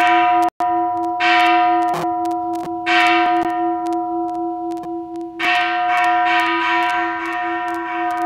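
Metal bells struck several times, about a second in, near three seconds and again about five and a half seconds in, each strike ringing out and fading over a steady, slowly pulsing tone.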